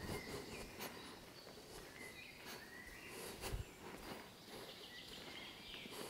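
Faint woodland birdsong: scattered short chirps and whistles over soft, steady background noise, with a few brief footfalls on a gravel track.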